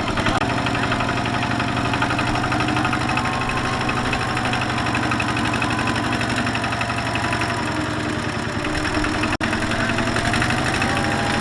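Kubota single-cylinder diesel engine of a small two-wheel hand tractor running steadily with a rapid knocking beat and a thin whine that sags and rises slightly in pitch. The sound cuts out for an instant a little over nine seconds in.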